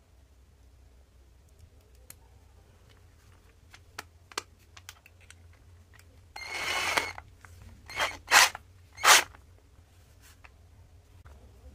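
Packaging being handled: a few light clicks, then a short rustle or tear of plastic just under a second long, followed by three short rustles.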